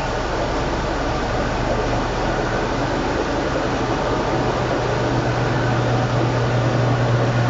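Sharp ES-KS70K washing machine running mid-cycle on a portable power station, working normally: a steady wash noise with a low motor hum that comes in about four seconds in and stops near the end.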